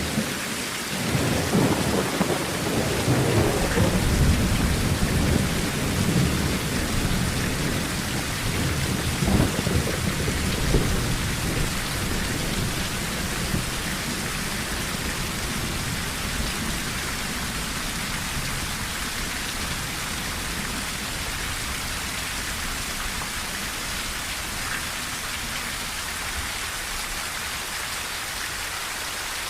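Steady rain on a tin roof with a long rumble of thunder through roughly the first ten seconds, dying away and leaving the even patter of rain.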